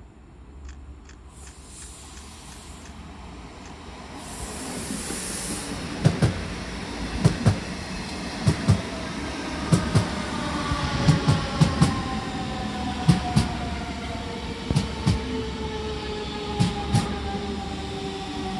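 DB class 425 electric multiple unit running in, its wheels clicking in pairs over the rail joints. Its electric whine falls steadily in pitch as the train slows.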